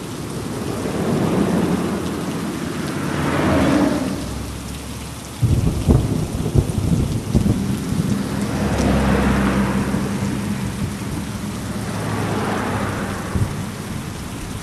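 Heavy rain falling steadily, its hiss swelling and fading every few seconds. About five seconds in, a sudden crack of thunder breaks out and rumbles on for a couple of seconds.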